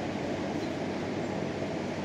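Steady, dense rumbling background noise with no breaks or distinct events.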